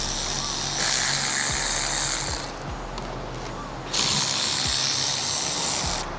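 Ratchet wrench clicking in spells as fasteners are turned, louder at about one second in and again at about four seconds.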